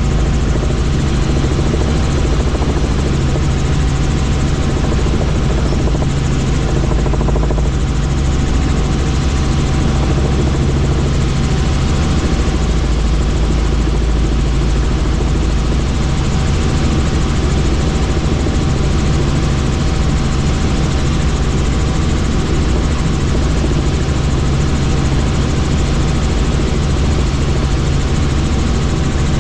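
Helicopter in flight: a loud, steady drone of rotor and engine with a constant whine above it.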